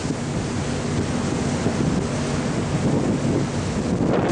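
Strong wind blowing across the microphone on a ferry's open deck, over the rush of a choppy sea, with a low steady drone underneath.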